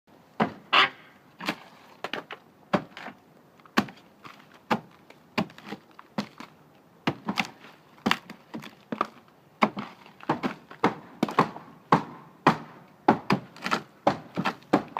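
Wood being struck and broken apart: a string of irregular knocks and cracks, about one or two a second, some coming in quick clusters, typical of demolishing damaged wood.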